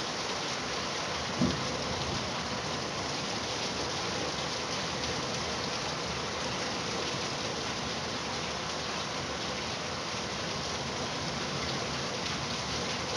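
Steady rain falling, an even hiss with no letup. There is one short low thump about a second and a half in.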